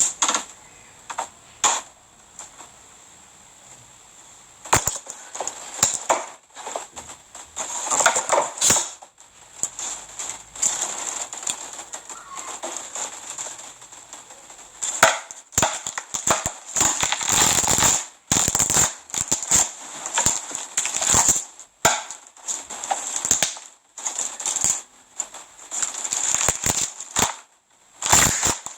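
Slime being pressed and squeezed by hand, giving sharp crackling pops and clicks. They are sparse at first and come in dense runs from about halfway on.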